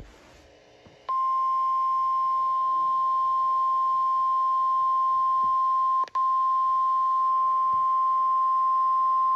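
NOAA Weather Radio warning alarm tone: a single steady high tone, about 1050 Hz, that starts about a second in and drops out for a moment about six seconds in. It signals that a warning, here a severe thunderstorm warning, is about to be broadcast.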